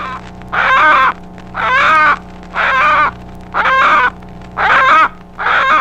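Hen giving loud fear squawks while held in a person's hand: a rapid series of about six harsh calls, roughly one a second, the alarm call of a captured chicken. A steady low hum runs underneath.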